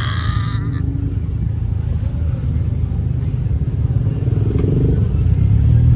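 Polaris Slingshot three-wheeler's engine and road noise heard from its open cockpit while driving: a steady low rumble that grows a little louder about five seconds in.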